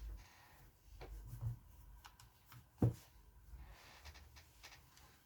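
Faint, scattered clicks and light taps of small objects being handled, with one sharper click a little under three seconds in.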